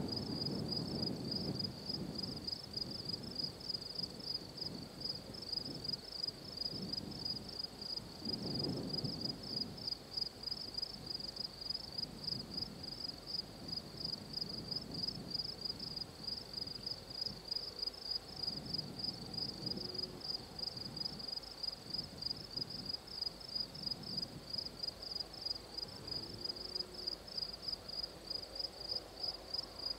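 Insects chirring in a fast, steady, pulsing high trill.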